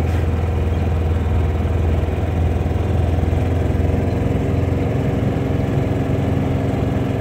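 Engine of a Kawasaki Mule side-by-side running steadily while it drives along a dirt road, a loud low drone with the rumble of the ride, heard from inside the cab.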